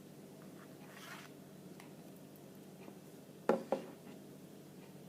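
Handling of the phone's box and accessories: a faint rustle about a second in, then two quick sharp knocks a quarter-second apart, about three and a half seconds in.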